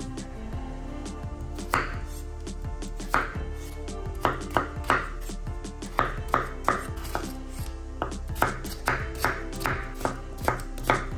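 Knife chopping food on a cutting board: sharp, irregular strokes that start about two seconds in and come roughly two a second, over background music.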